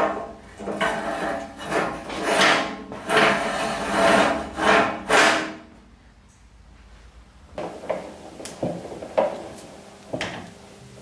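Steel sliding tool rest pushed back and forth along the forge trolley's steel tube rails: a run of rough metal-on-metal scraping strokes for about six seconds. After that come a few scattered light clicks and taps.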